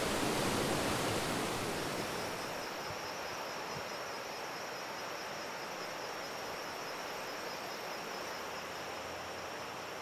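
Water of a shallow rocky creek rushing over stones, easing after about two seconds into a quieter steady outdoor hiss with a thin, steady high-pitched tone.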